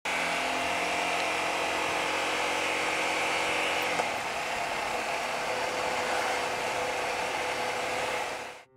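Honda VTR250 motorcycle on the move: its V-twin engine running steadily under wind rush on the microphone. The sound shifts slightly about four seconds in.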